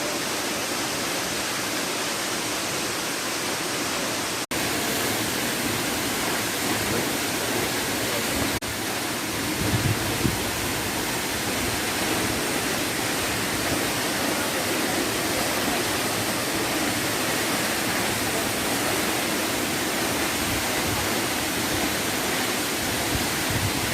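Toccoa Falls waterfall: the steady rush of water falling and splashing, an even roar with no change in pitch. It drops out for an instant twice in the first nine seconds, and there are a few brief low bumps about ten seconds in.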